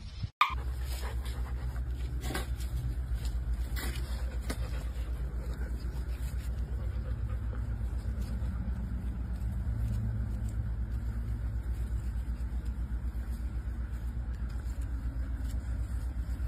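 A steady low mechanical rumble with a fast, even pulse, with a few faint clicks over it.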